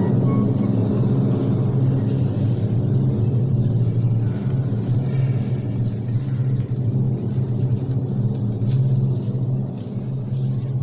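Steady low rumble under a faint hum of crowd voices, in a large echoing church nave.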